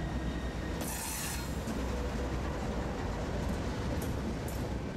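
Diesel freight locomotives rolling past close by: a steady low engine and wheel rumble, with a brief high hiss about a second in and a few sharp clicks near the end.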